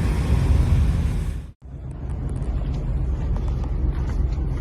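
Steady low outdoor rumble with a hiss above it, cut off abruptly about a second and a half in and resuming straight after with a few faint clicks.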